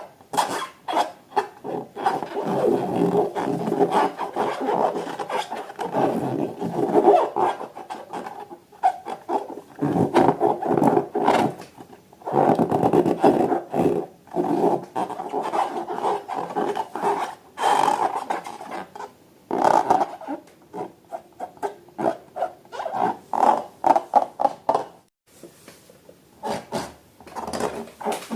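Rubber balloons and slime being handled: stretches of rubbing and squeaking interrupted by many short clicks and squishes.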